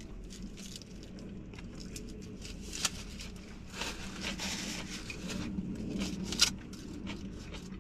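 Eating a large burrito: the wrapper crinkles and rustles with scattered small clicks and crackles, and a couple of sharper clicks about three and six and a half seconds in.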